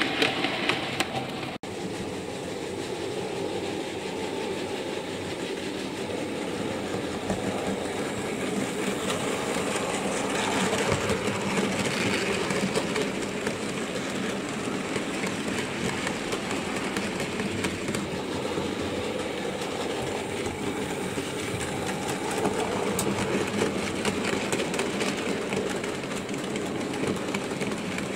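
OO gauge model freight train, a Bachmann Class 3F tender locomotive and its wagons, running steadily on the layout's track: a continuous noise of the motor and wheels with fine clicking. There is a brief dropout about a second and a half in.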